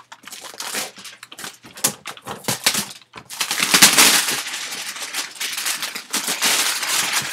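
Clear plastic wrap crinkling as it is stripped off a cardboard box, with scattered knocks and scrapes of the box being handled; the crinkling grows dense and steady about three seconds in.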